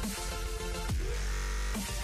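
Electronic outro music with a heavy bass line and a falling pitch sweep about a second in.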